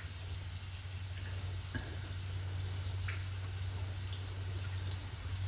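Water hissing and spraying from a small leak in the newly connected well water line, with a steady low hum underneath and a few faint ticks.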